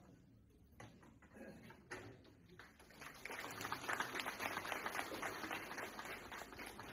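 Audience applauding, a dense patter of many clapping hands that starts about three seconds in and carries on until near the end.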